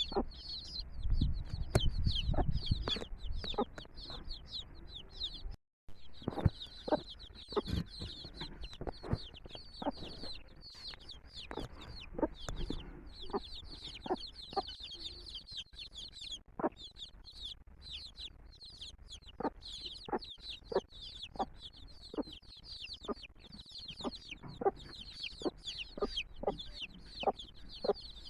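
A brood of chicks peeping without pause in high, rapid chirps. Among the peeps are many short, sharp sounds, and the hen clucks now and then. The sound cuts out for a moment about six seconds in.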